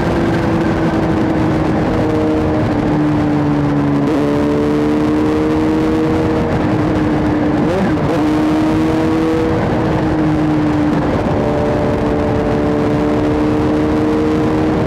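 Motorcycle with a freshly fitted aftermarket Orion exhaust pipe, really loud, running at cruising speed. The engine note sags slowly and picks back up a few times.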